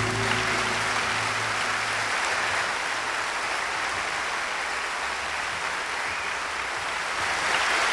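Audience applause right after the song ends, with a low held note from the band dying away about two seconds in.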